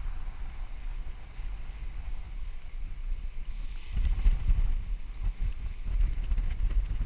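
Wind buffeting the microphone on a sailing yacht's deck, a gusty low rumble, with the sea rushing along the hull. The wind rumble grows louder about four seconds in.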